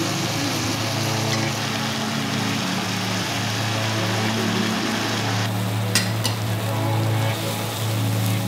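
Sauce and mushrooms sizzling in a frying pan over steady background music with held low notes. The sizzle cuts off suddenly about five and a half seconds in, followed by two sharp clicks.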